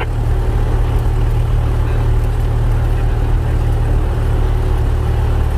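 Cessna 172's piston engine and propeller running steadily, heard from inside the cockpit.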